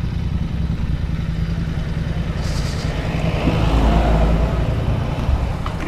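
Royal Enfield 650 parallel-twin motorcycle engine running at low speed as the bike rolls in and stops, a steady low rumble that swells a little about halfway through.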